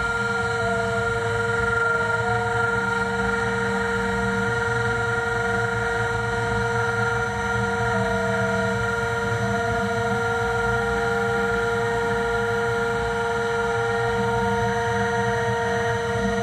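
Compact trim router on a DIY CNC gantry running at steady speed while its bit carves particleboard, giving a constant high whine over a low rumble. A weaker tone steps up and down in pitch as the carriage moves across the board.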